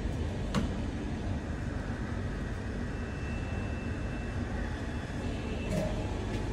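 Steady low background rumble of a cinema lobby's room noise, with one short click about half a second in and a faint thin high tone in the middle.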